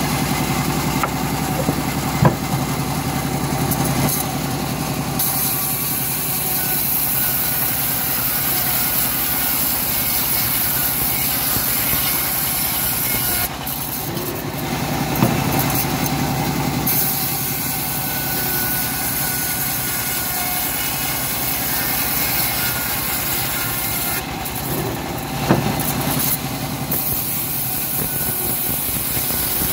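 Homemade bandsaw running steadily as it rips old teak planks, with a high cutting hiss that breaks off twice for a few seconds. A few sharp knocks stand out over the machine noise.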